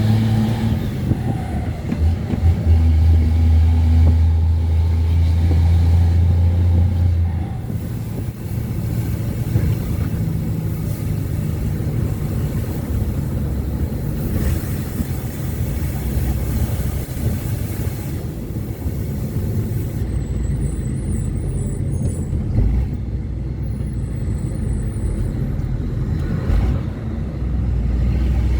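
Ford Cargo 2428 truck's diesel engine pulling with a strong, steady drone for the first several seconds, then dropping away about seven seconds in to a lower, rougher rumble. Faint high-pitched squeaks come and go near the end.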